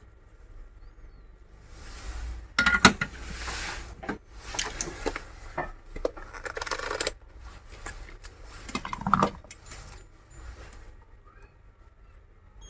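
Small metal tools clinking and scraping in several irregular bursts, the sharpest click about three seconds in, during soldering of the two contact points of an LED lamp's circuit board.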